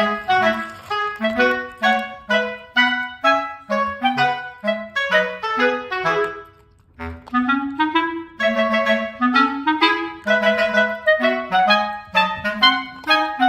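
Background music: a melody of short, separate notes, with a brief break about halfway through.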